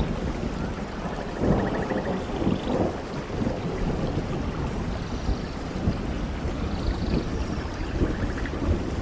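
Steady heavy rain with thunder rumbling, swelling louder about a second and a half in. Faint high trilling calls sound twice over the rain.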